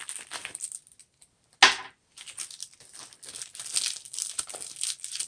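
Packaging being crinkled and torn open by hand, with a dense run of crinkling in the second half. A single sharp crack about a second and a half in is the loudest sound.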